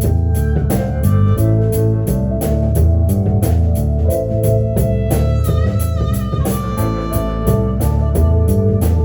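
Live rock band playing an instrumental passage: electric guitar over drum kit, bass and organ, with a steady beat. About halfway through, a held lead note wavers in pitch.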